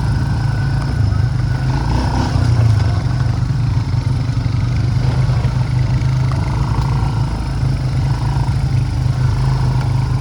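Four-wheeler (ATV) engine running steadily while riding along a trail, at a fairly even low pitch.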